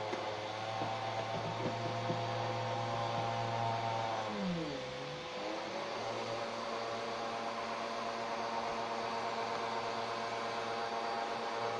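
Vacuum cleaner motor running steadily; about four seconds in its pitch sags and then recovers.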